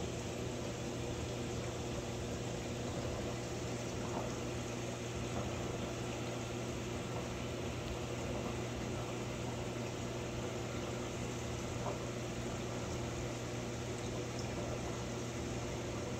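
Reef aquarium running: a steady hum of pump motors under the even hiss of moving water.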